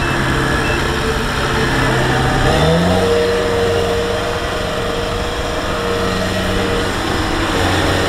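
Diesel engine of a Kubota rice combine harvester running under load in deep mud. About two and a half seconds in, the engine speed rises quickly and then holds higher while the machine works to pull out of the mud.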